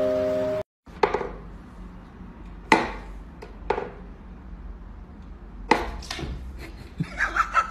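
Wooden whack-a-mole cat toy knocking: sharp single wooden knocks every second or two as the pop-up pegs are pushed and the cat swats at them. A brief end of background music comes just before.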